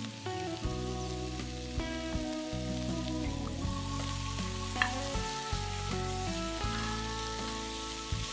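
Diced onion and red bell pepper sizzling in oil in a cast iron pot while tomato paste is stirred in with a spatula, with a sharp scrape or tap of the spatula about halfway through. Soft background guitar music plays underneath.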